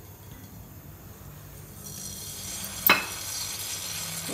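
Cooking oil heating in a steel pot starts to hiss and sizzle about two seconds in, with a single sharp click or pop about a second later.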